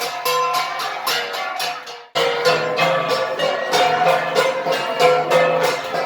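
A gangsa ensemble of flat bronze gongs playing a steady, quick, even beat of ringing strikes. About two seconds in the playing fades out briefly, then starts again at full strength.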